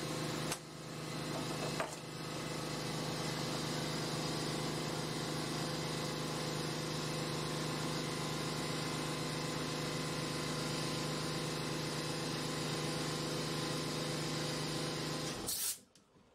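A steady electric motor hum with a few sharp clicks in the first two seconds, cutting off suddenly about a second before the end.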